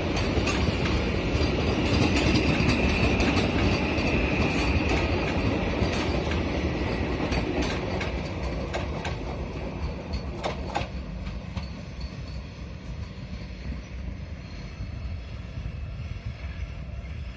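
Train 18 semi-high-speed electric trainset running on the rails, a steady rumble with a high whine in the first few seconds. A run of sharp clicks from the wheels over rail joints comes around the middle, and the sound fades steadily as the train draws away.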